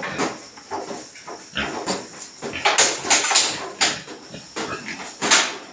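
Pigs on a farm calling in a run of short, irregular bursts.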